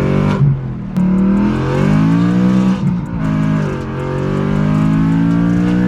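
BMW M3 running a straight-piped exhaust with no catalytic converters and no muffler, loud and revving under acceleration: its pitch climbs, drops off as the throttle lifts, then climbs again.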